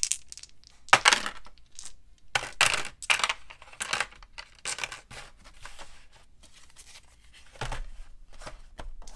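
A string of short rattles, clicks and scrapes from handling board-game pieces: plastic dice jostled in the hand and set into a plastic tray insert, then a player board laid into its box and slid flat. The loudest rattle comes about a second in.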